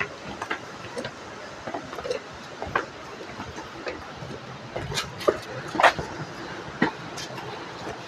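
Steady rush of a waterfall, with irregular short knocks and clicks over it, the loudest about five and six seconds in.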